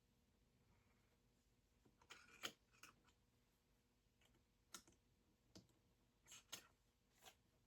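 Faint scattered clicks and short scrapes of small metal screw eyes being twisted into a wooden board.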